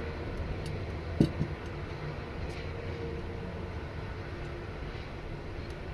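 Steady low background rumble and hum, with a few light clicks of small gearbox parts being handled on the bench, the sharpest about a second in.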